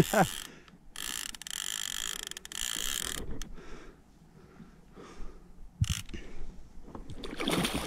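Fishing reel under load as an albacore tuna is fought beside a kayak: a steady mechanical whirring with a ratchet-like buzz for about two seconds starting a second in, then quieter scattered knocks from the rod and reel as the fish is wound up to the surface.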